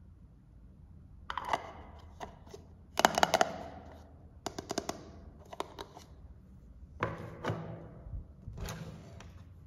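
Small plastic toy pots, lids and utensils clicking and clacking as they are handled: a lid fitted onto a little pot and pieces set down on a tabletop, in several short clusters of taps, the loudest about three seconds in.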